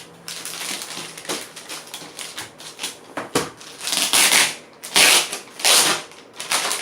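A delivery package being handled and opened by hand: light clicks and rustling of packaging, then three louder rustling, ripping sweeps of about half a second each, a little past the middle.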